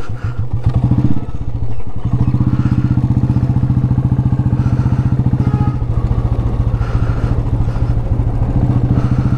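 Royal Enfield Bullet's single-cylinder four-stroke engine running under way, with a fast, even thump. The engine note dips briefly about two seconds in and again near six seconds.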